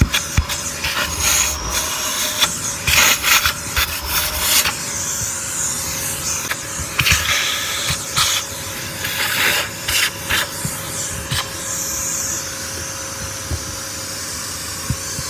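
Vacuum cleaner running with a steady motor whine, its nozzle repeatedly scraping and rubbing over a surface in short strokes.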